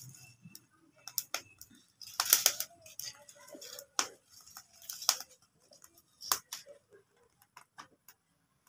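Cooking at an open wood fire: scattered sharp clicks and light knocks, crackling firewood under an iron griddle mixed with the clink of steel bowls, with a denser cluster a little over two seconds in.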